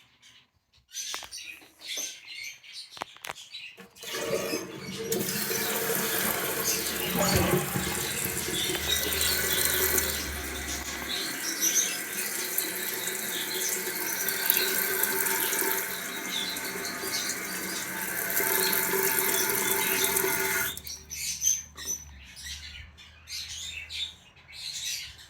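A 1993 Kohler Wellworth Lite toilet is flushed about four seconds in. Rushing water runs steadily as the tank drains and refills, then stops abruptly about seventeen seconds later, as happens when the fill valve shuts off.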